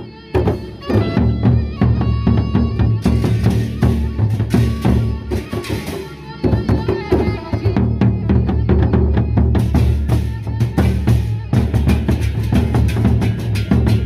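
Gendang beleq ensemble playing: large double-headed barrel drums beating a dense rhythm under ringing metal percussion. The sound dips briefly just after the start and again about six seconds in.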